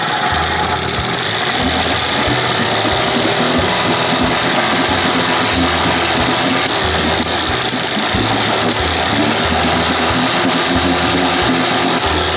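Two-cylinder engine running with an uneven, lumpy beat after a spark plug thread insert has been fitted.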